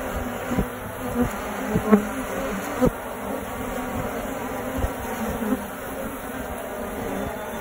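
A honey bee colony buzzing steadily at its nest entrance in a hollow tree, many bees humming at once. A few brief thumps break in, the loudest about two and three seconds in.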